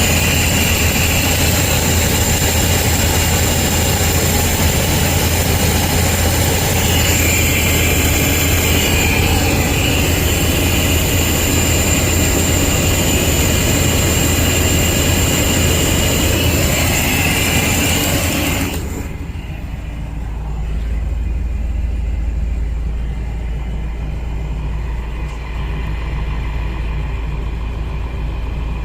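Motorhome engine running steadily with a loud hiss over a low hum; about two-thirds of the way in the hiss drops away suddenly, leaving only the low steady hum.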